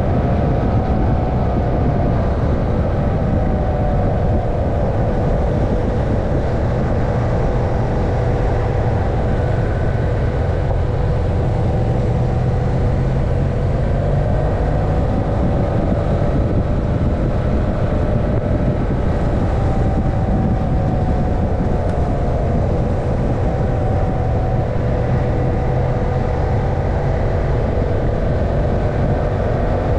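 Motorcycle engine running steadily under load on a climbing road, its pitch drifting gently up and down with the throttle, mixed with a heavy low rush of wind and road noise on the onboard camera.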